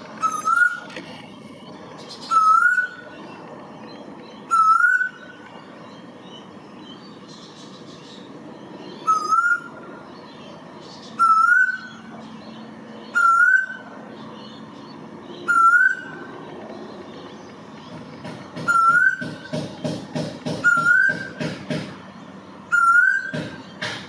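Male eastern koel calling: about ten loud, rising whistled notes, one every two seconds or so, with a pause of a few seconds near the middle. About three-quarters of the way through, a run of rapid pulsing sounds joins in for a few seconds.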